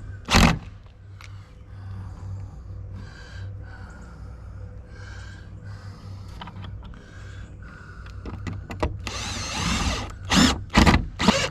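Power drill running in a series of short bursts, driving screws to mount tool hooks, with a few sharp knocks near the end.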